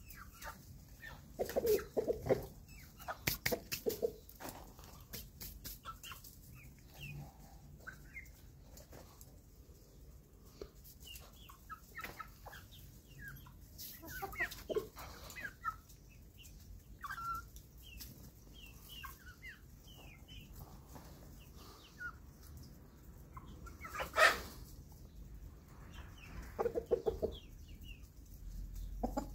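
A flock of young chickens and a rooster clucking, with short high peeps scattered throughout and bursts of lower clucking near the start and near the end. Sharp clicks come and go, and there is one loud sudden noise about 24 seconds in.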